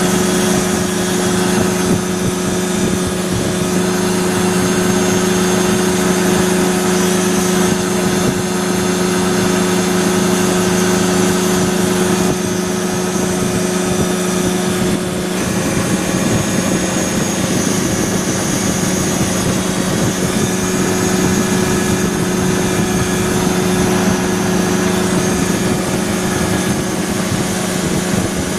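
ASAP Beaver SS ultralight's two-stroke engine and propeller running steadily in flight, with a constant drone and a rush of wind noise.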